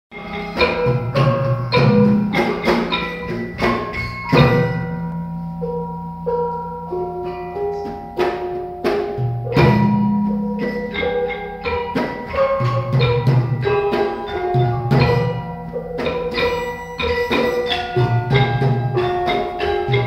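Malay gamelan ensemble playing a piece: bronze metallophones struck in a quick melody, each note ringing on, over regular low strokes of gendang drums and long low tones.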